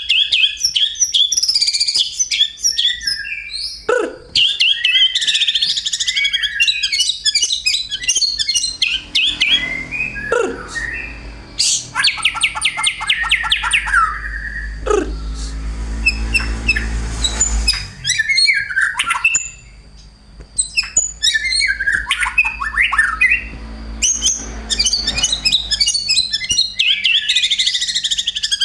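Male white-rumped shama singing a long, varied song of fast chirps and chatter, mimicking the squabbling calls of fighting Eurasian tree sparrows. A few long whistles glide steeply down, and there is a short lull partway through.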